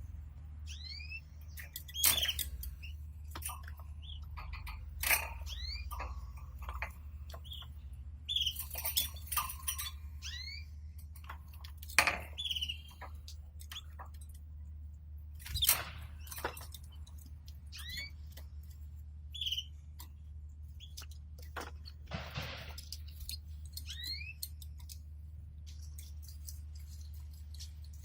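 Canaries giving short, scattered chirps and call notes, each a quick rising or falling whistle, mixed with sharp clicks and taps from the birds moving about in the cage. A steady low hum runs underneath.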